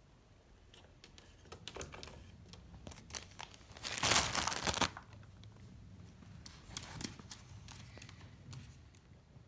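Clear plastic bag crinkling loudly for about a second as a bearded dragon scrambles over it, with lighter scattered crinkles and clicks before and after.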